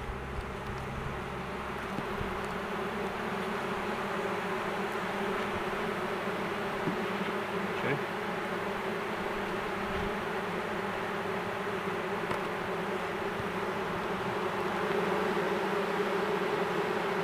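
A mass of honeybees buzzing in a steady, dense hum around an open hive box as a newly installed package colony settles in. The hum grows a little louder near the end.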